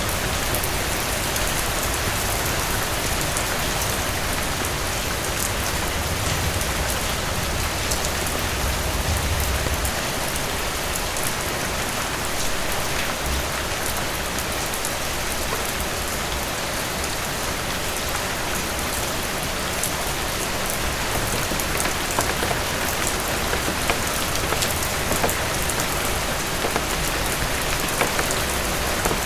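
Heavy rain falling steadily in a dense, even hiss, with individual drops spattering on surfaces and a faint low rumble underneath.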